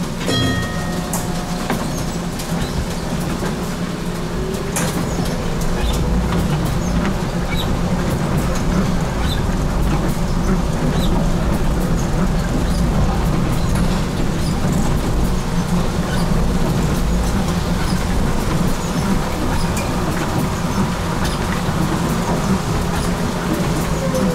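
HTM GTL8 articulated tram running on its rails, heard from inside the car: a steady low rumble of wheels and running gear with scattered clicks, and faint whines that rise and fall.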